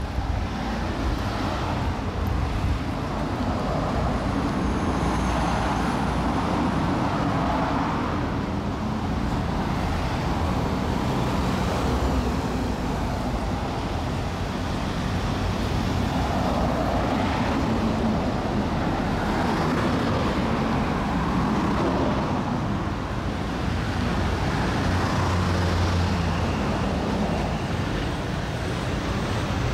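Road traffic: cars passing in a steady stream, each one swelling and fading as it goes by.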